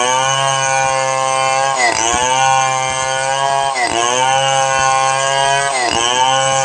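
Stihl 070 chainsaw's big single-cylinder two-stroke engine running at high speed under cutting load, its pitch dipping sharply and recovering about every two seconds as the chain bites into the wood.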